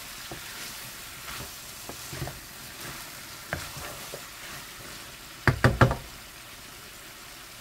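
Chicken and potato filling sizzling in a non-stick frying pan while a wooden spatula stirs and scrapes through it, with small scattered clicks. A quick run of about four loud knocks comes a little past two-thirds of the way through.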